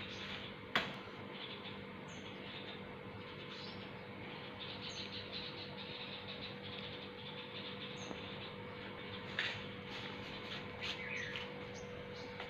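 A wooden match struck once against its matchbox, a sharp scrape-click about a second in, to light a clay chulha. Birds chirp briefly several times, over a steady hum, with a few small knocks from handling the fuel later on.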